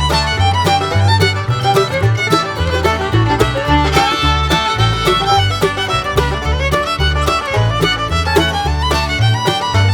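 Bluegrass-style background music led by fiddle, over a steady walking bass.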